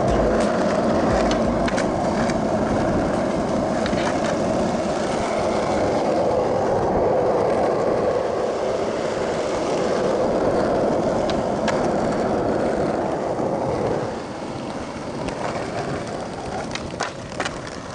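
Skateboard wheels rolling on asphalt, a steady rumble, with a few sharp clacks of the board; the rolling gets quieter about fourteen seconds in.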